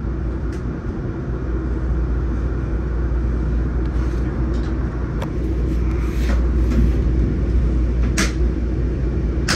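Steady low rumble of a moving passenger train heard inside a Budd stainless steel Skyline dome car, with a few short sharp ticks and rattles at uneven moments.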